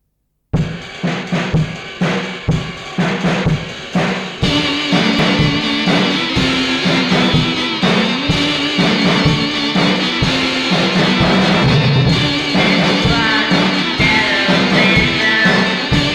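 Lo-fi garage rock song intro: a drum kit plays alone for about four seconds, then the band comes in with guitar, organ and bass under the steady beat.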